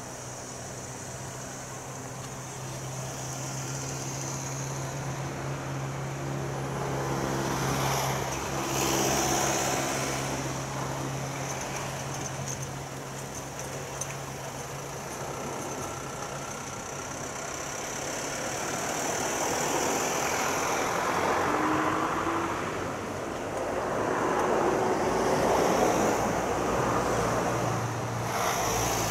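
Road traffic: a steady low engine hum with vehicles swelling past several times.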